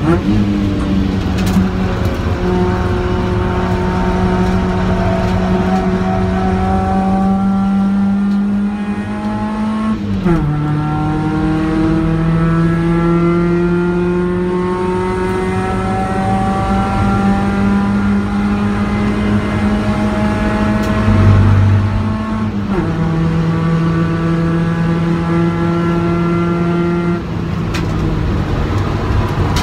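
A Mk1 Ford Focus engine heard from inside the cabin, driven hard on track. Its note climbs steadily as it pulls through each gear and drops sharply at upshifts about ten seconds in and again about two-thirds of the way through, over steady road and wind noise.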